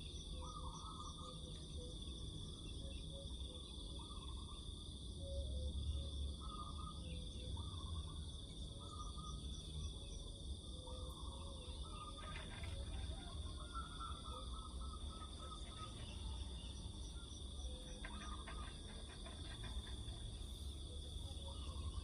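Outdoor insect chorus, crickets or similar insects trilling steadily on a high note, with short chirping calls repeating over it and a low rumble of background noise.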